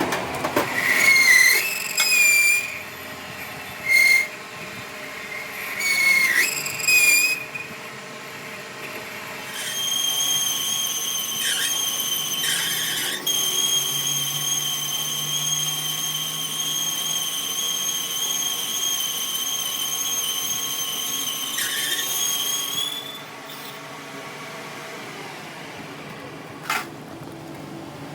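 High-pitched squealing of a tool working metal: several short squeals in the first seven seconds, some rising in pitch, then one long steady squeal from about ten seconds in to about twenty-three, with a few clicks along the way.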